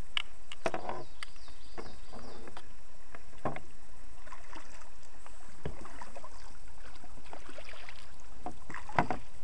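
Kayak paddling: irregular splashes and knocks of the paddle, the loudest near the end.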